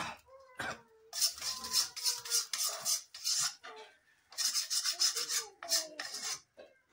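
A metal spoon scraping roasted masala out of a steel kadhai: quick rasping scrapes of metal on metal, in two runs with a short pause about halfway.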